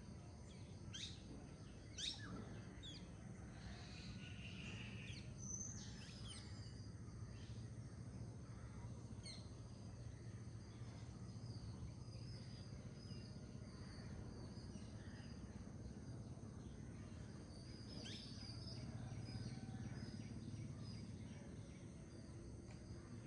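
Wild birds singing faintly over the low steady rush of a flowing forest river: several short, sharp calls that sweep downward, the loudest about two seconds in, and a brief warble a few seconds later.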